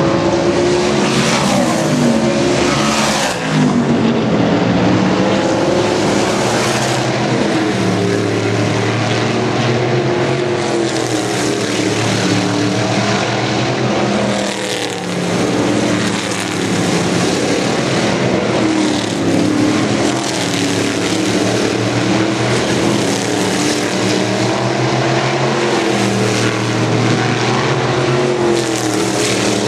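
Several racing cars running at speed around an oval track, their engine notes rising and falling as they lap and pass.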